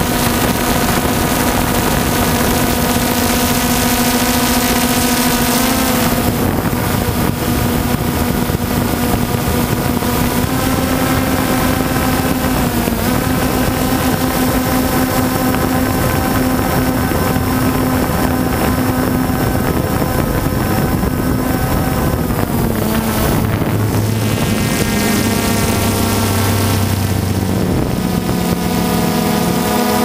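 DJI Phantom 2 quadcopter's electric motors and propellers whining steadily in flight. The whine holds several pitches at once, which step up or down a few times as the motor speeds change, most markedly a little over twenty seconds in.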